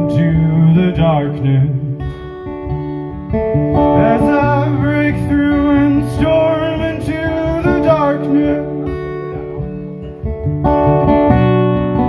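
A man sings a folk ballad to his own acoustic guitar. The voice pauses briefly about two seconds in, then drops out again after about eight seconds, leaving the guitar playing alone.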